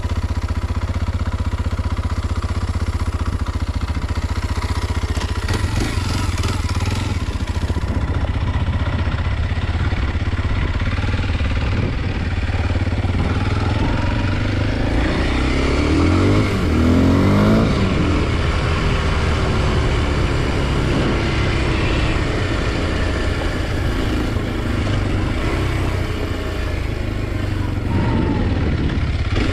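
Kawasaki KLX 230 SM's single-cylinder engine running steadily, then revving up and down about halfway through.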